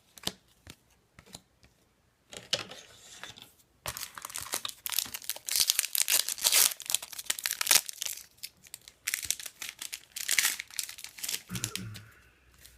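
A 2013-14 Upper Deck Series 1 hockey card pack being torn open and its wrapper crinkled. A few light clicks and a short rustle come first, then a long stretch of dense crackling and ripping from about four seconds in until near the end.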